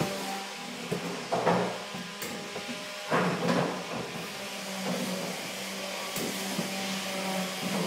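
A steady low hum with fainter steady tones above it, broken by a few short knocks about a second and a half and three seconds in.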